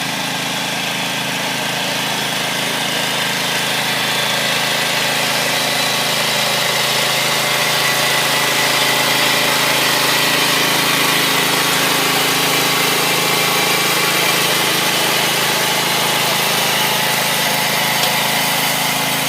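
Small engine of a farm cultivator running steadily, a little louder for a few seconds in the middle.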